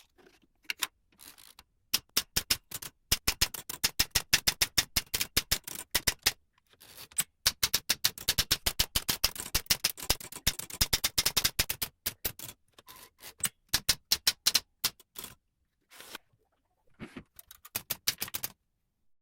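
A restored 100-year-old manual typewriter typing: fast, irregular runs of key strikes clacking, with short pauses between runs, thinning out to a few strikes and stopping near the end.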